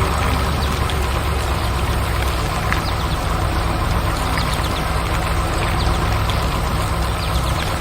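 A heavy engine running steadily at a low rumble, with a hiss over it and a few light ticks scattered through.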